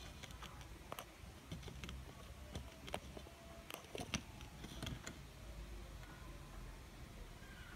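Faint, irregular small clicks and taps, about a dozen in the first five seconds, as a magnifying lens is handled and fitted; then only a low background hum.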